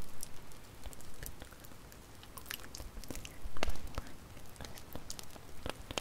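Wood fire crackling: irregular sharp pops and snaps over a low steady rumble, with a cluster of louder pops about three and a half seconds in.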